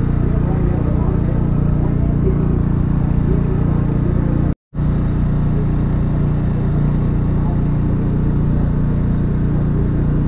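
A steady low engine drone, with faint crowd voices behind it; the sound cuts out for a moment about halfway through.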